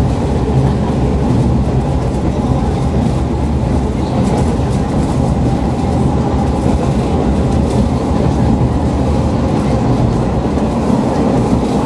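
Kashima Rinkai Railway diesel railcar running along the line, heard from inside the passenger cabin: a steady low rumble of engine and wheels on rail.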